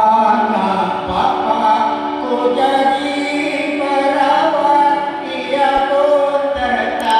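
Choir singing, several voices together holding long notes.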